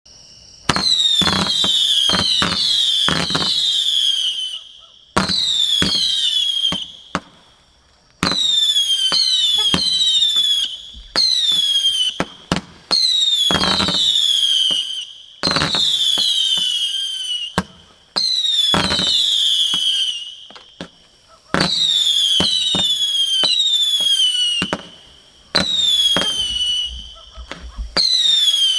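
A 200-shot firework cake firing in volleys, about ten of them every two to three seconds. Each volley has sharp launch thuds and several whistling tones that slide down in pitch.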